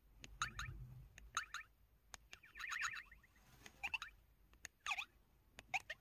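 Samsung Anycall SPH-S3900 mobile phone key-press sounds on the 'Baby Talk' button-sound setting: a string of short electronic blips, some with quick pitch glides, as the menu and navigation keys are pressed.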